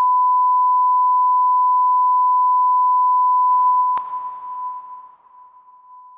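A steady 1 kHz test tone, the sine beep that goes with SMPTE colour bars, cutting in abruptly where the footage breaks off. About three and a half seconds in the tone turns rough and hissy, a sharp click sounds at about four seconds, and then the tone fades away.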